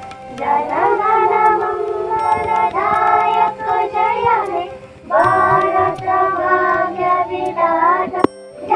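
A group of young schoolchildren singing a song together in unison, in sung phrases with short breaks about five seconds in and near the end.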